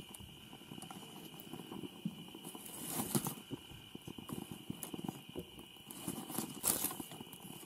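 Small campfire of sticks and dry grass crackling and popping in irregular clicks, with two louder bursts of crackling about three seconds in and near the end.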